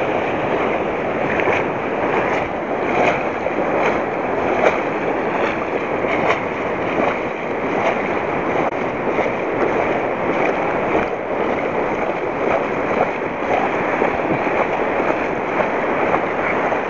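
Shallow surf washing and foaming over a sandy beach: a steady rush of water that swells and eases slightly, with wind on the microphone.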